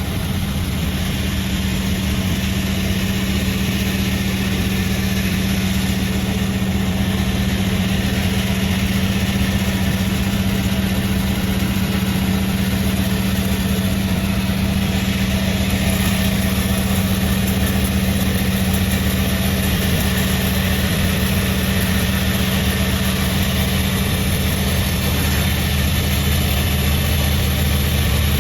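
Sawmill machinery running steadily with a constant low engine-like hum.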